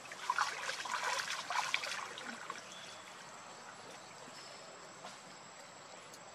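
Water splashing and trickling as a pig-tailed macaque paddles its hands in a shallow pool, for about the first two seconds, then dying down to a faint steady background.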